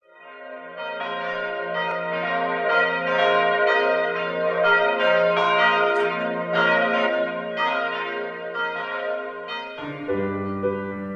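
Church bells ringing a peal, several bells striking over and over so their tones overlap, fading in at the start. About ten seconds in the bells give way to a piano starting to play.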